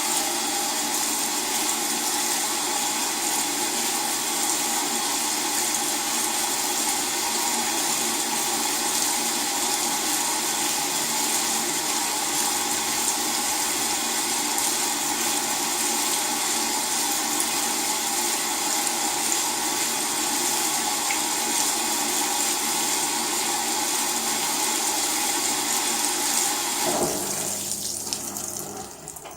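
LG WT-R852 direct-drive washing machine filling with water: a steady rush of water through the inlet, which stops abruptly near the end.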